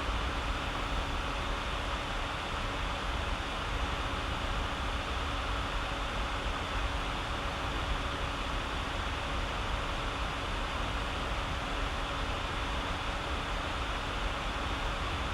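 Steady background hiss with a faint low hum, unchanging throughout; no distinct paper crinkling stands out.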